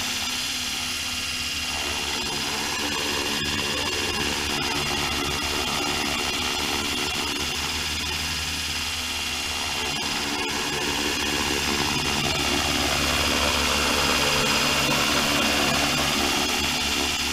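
RC helicopter hovering: its motor and spinning rotors give a steady drone with a high whine. The sound rises and falls slightly in pitch and gets a little louder after the middle as the hover is held.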